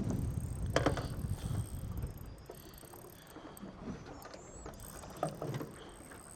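Fishing reel working while a trevally is played on light line: a quiet mechanical ratcheting with a sharp click just under a second in and a few fainter clicks later. A low rumble of wind and boat noise fades after the first two seconds.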